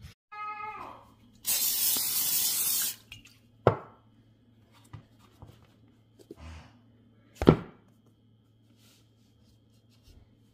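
Cooking oil spray hissing steadily for about a second and a half as it coats the inside of a wooden bowl. It is followed by two sharp knocks a few seconds apart, the second the loudest.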